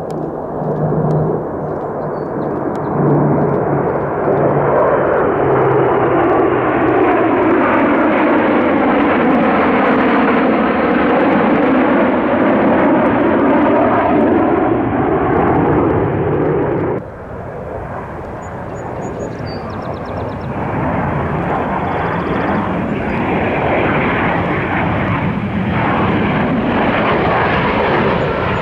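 Airplane engines passing close by: a loud, steady rush that swells and sweeps with a phasing whoosh as the aircraft goes past. The sound breaks off abruptly about two-thirds of the way through, and aircraft noise of the same kind carries on after it.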